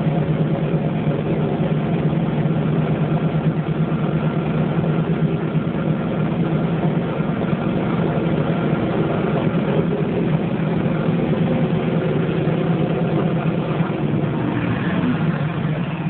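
Hoover Twin Tub 3334 washing machine running steadily: an even, low motor hum.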